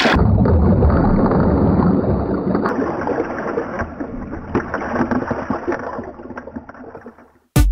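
Muffled rumble of churning surf water with scattered clicks, as picked up by a camera in a waterproof housing. It is loudest at first, fades gradually and cuts off suddenly near the end.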